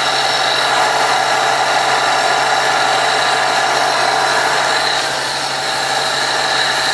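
A motor or engine running steadily at a constant pitch, its level dipping slightly about five seconds in.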